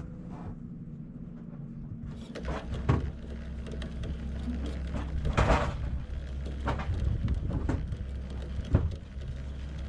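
Fishing rod and reel being cranked in fast, with scattered knocks and thumps from handling, over a low steady rumble that sets in about two seconds in.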